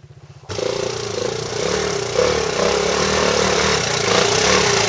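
Suzuki dirt bike engine running loud and close as the bike climbs a rutted dirt trail, cutting in suddenly about half a second in after a faint start and slowly getting louder.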